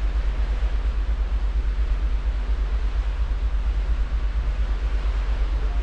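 Steady noise of the cruise ship Koningsdam under way, heard from its aft balcony: a deep, fluttering rumble of wind on the microphone under an even hiss from the ship's wake and machinery.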